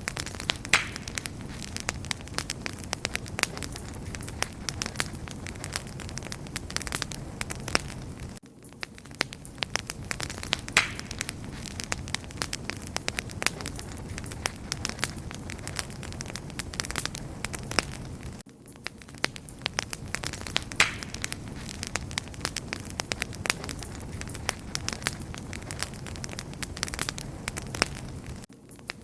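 Wood fire crackling: dense, irregular pops and snaps over a steady low rumble, dipping briefly in level about every ten seconds.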